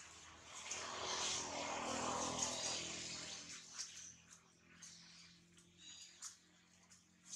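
Leaves rustling in a swell that lasts about three seconds, then fading to faint scattered clicks and ticks.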